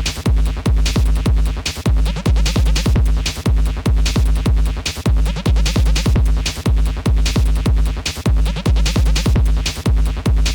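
Electronic background music with a heavy bass line and a fast, steady beat.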